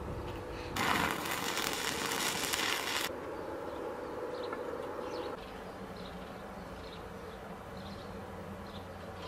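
A burst of arc-welding crackle on steel rebar, about two seconds long, starting about a second in and cutting off sharply. A low steady hum remains after it.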